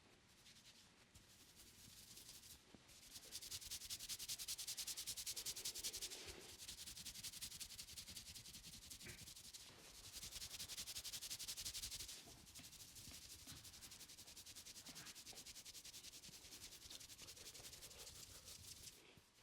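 Hands rubbing rapidly over hair and scalp in a head massage: a fast, scratchy rasp of many quick strokes, louder in two stretches, once a few seconds in and again around the middle.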